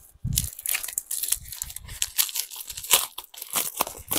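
Plastic packaging of a mail-order parcel being torn open and crinkled by hand: irregular crackling and tearing, with a soft thump shortly after the start.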